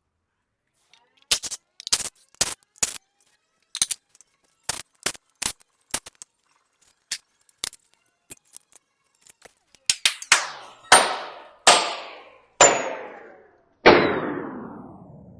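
Sharp metal-on-metal strikes from a hammer or bar: a string of lighter, irregular taps, then from about ten seconds in five harder blows that each ring on and fade, as the rusty front pulleys and harmonic balancer of a V8 are worked on.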